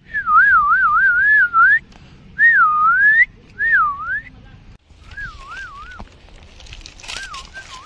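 A person whistling a wavering, warbling tune in five short phrases. The pitch rises and falls smoothly, and the last two phrases are quieter.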